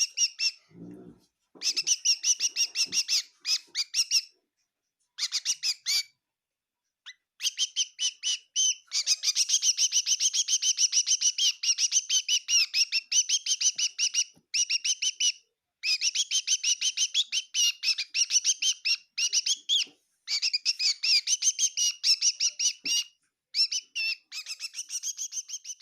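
Bird chirping in long runs of rapid, high chirps, several a second, broken by short pauses.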